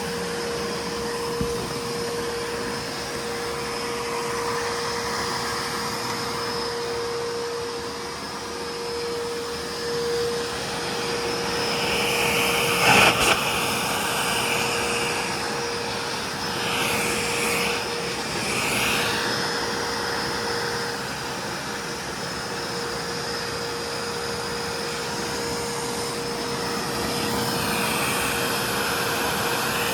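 2007 Hoover Constellation hovering canister vacuum cleaner running steadily, its motor giving a constant whine over the rush of air. A sharp click comes partway through, then a few brief wavering changes in the airflow sound.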